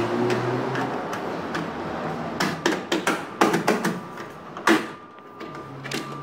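Irregular sharp knocks and clacks of a white channel profile being pressed and knocked into place along the edge of a drywall opening, loudest about three and a half and nearly five seconds in.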